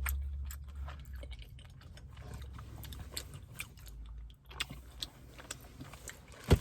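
Chewing tapioca boba pearls from a bubble tea: soft, wet mouth clicks over a low, steady rumble, with one sharp click near the end.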